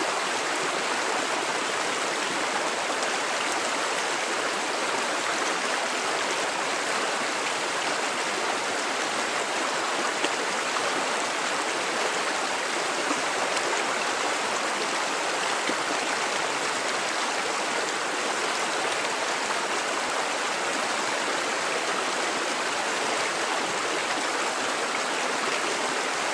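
Steady rushing of flowing stream water, an even hiss without a break.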